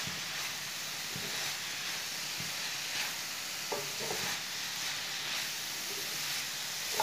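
Chopped chicken, cabbage and vegetables sizzling steadily in a frying pan over medium heat, while a wooden spatula stirs and lightly scrapes through them.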